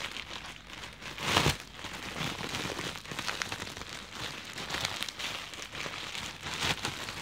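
Packaging crinkling and rustling as a pair of drumsticks is unwrapped by hand: a dense run of small crackles, with a louder rustle about a second and a half in.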